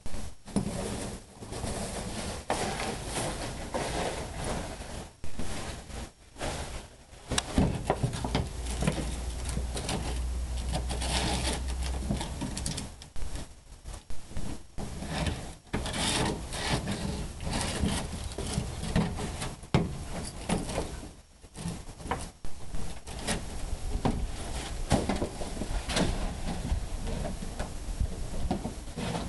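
Wolf-dog hybrid playing rough with a plastic kiddie pool, the plastic scraping and crackling in irregular stretches broken by many sharp knocks and clicks.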